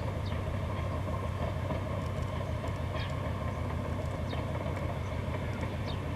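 Diesel engines of a 3TE10M locomotive, 10D100 two-stroke opposed-piston units, running at a steady, even note, with a few brief high chirps over it.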